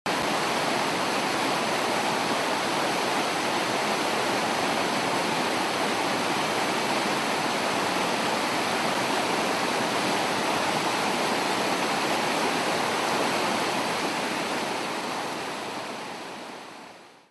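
Whitewater river rapids rushing in a steady, even roar of water that starts suddenly and fades out over the last few seconds.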